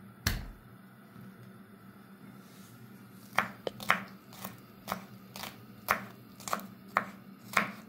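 Knife chopping garlic on a cutting board: one knock, then from about three seconds in a steady run of chops, about two a second.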